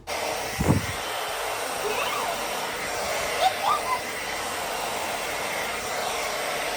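CHI Pro hair dryer switching on and blowing steadily, with a single thump just under a second in.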